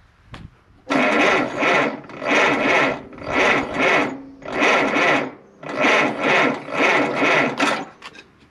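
Starter cranking the 1948 Silver King Model 42 tractor's engine on a 6-volt battery, turning it over in even surges about one and a half times a second without it firing, then stopping near the end.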